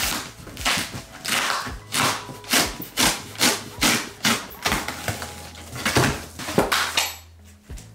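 A large cardboard shipping box being opened by hand: packing tape ripped away and the flaps pulled back, a run of short tearing and scraping rasps and knocks that stops about seven seconds in.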